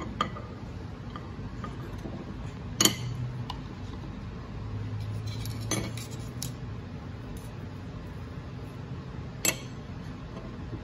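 Steel TH350 transmission pump gears and cast pump body clinking as they are handled and fitted together, with two sharp metal clinks about three seconds in and near the end and a few lighter taps between, over a low steady hum.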